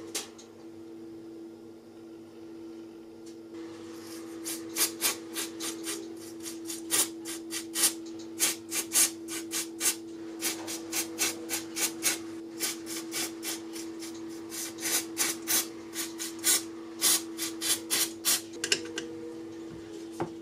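Short, sharp rasping scrapes, a few a second, from hand-tool work on the rusty screws and nuts of an old wooden saw handle. They start a few seconds in and stop near the end, over a steady low hum.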